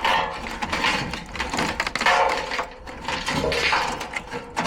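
Sheet metal scraping and clattering as a furnace blower assembly is shoved and worked into its cabinet.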